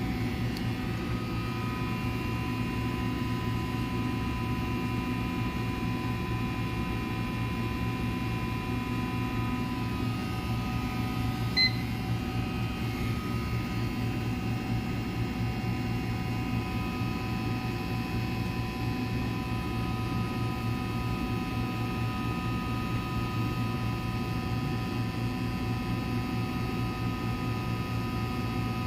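Microwave pyrolysis reactor running with a steady electrical hum and low buzz, with several steady tones above it. A single short beep about twelve seconds in.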